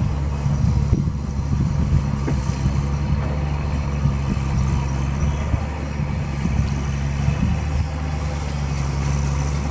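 A heavy vehicle's engine running steadily at a low, even pitch, with a few short knocks in the first couple of seconds.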